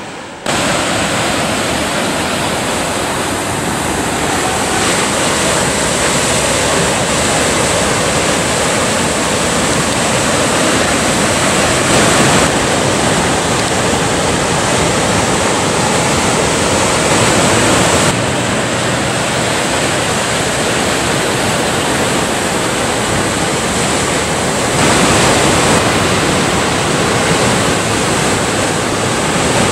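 Ocean surf: waves breaking and washing in a steady rush of water noise, whose level and tone change abruptly a few times.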